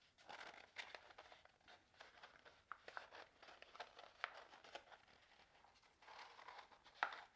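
Faint crinkling and rustling of a paper plate being rolled up by hand into a makeshift funnel, with a sharper tick near the end.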